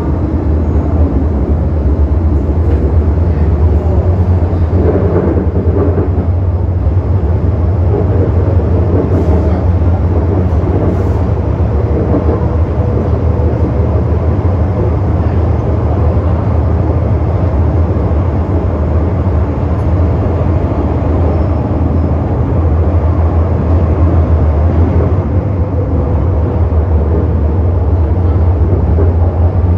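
Interior running noise of an MTR Metro-Cammell M-Train electric multiple unit: a steady deep rumble and hum of wheels on rail and traction equipment as it runs through a tunnel, growing slightly louder near the end.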